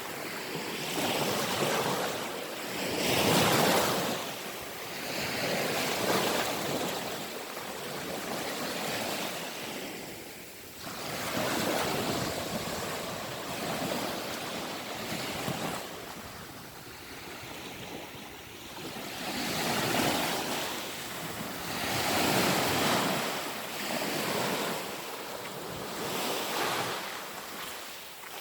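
Black Sea waves breaking and washing onto the shore, swelling and ebbing every few seconds, with some wind on the microphone.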